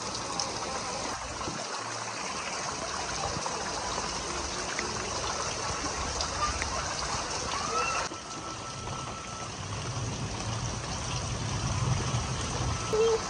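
Heavy rain pouring, with rainwater running off the edge of a corrugated roof in steady streams.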